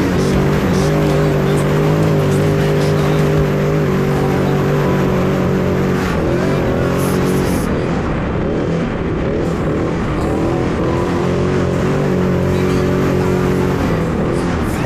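Off-road race car engine running hard at high revs, its pitch dipping and climbing again a few times, with music underneath.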